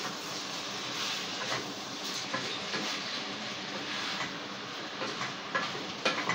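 Basmati rice and chicken sizzling in a pot as they are stirred, a steady hiss with light scrapes and taps from a wooden spoon. A few sharper knocks come near the end.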